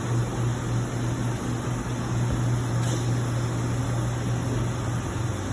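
Steady low machinery hum over a wash of noise, with one brief click about three seconds in.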